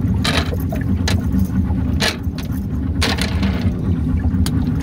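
A small fishing boat's outboard motor runs steadily with a low rumble. Several brief rustling or scraping noises sound over it about once a second.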